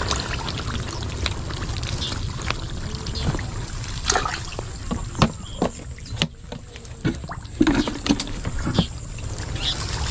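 Shallow muddy water sloshing and splashing as hands grope through mud and dry grass for fish, with many short crackles and splashes and a brief quieter spell about six seconds in.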